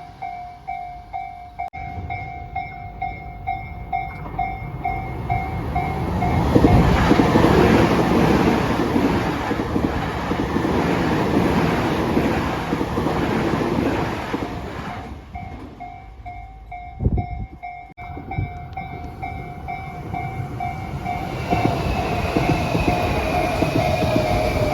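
Japanese level-crossing warning bell ringing at about two strikes a second as an electric train runs over the crossing, its rumble and wheel clatter swelling to the loudest part midway and drowning the bell. The bell is heard again afterwards, and near the end another train's gliding motor whine rises under it.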